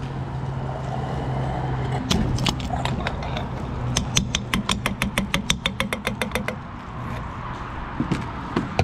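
Gasoline pump nozzle filling a pickup's tank, with a steady low hum and the rush of flow. From about two seconds in there is a fast, regular run of sharp clicks, about six a second, for roughly four seconds, then it goes quieter.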